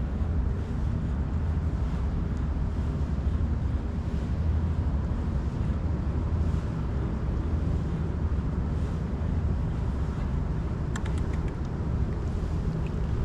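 Steady low wind rumble on the microphone, with a few faint clicks near the end.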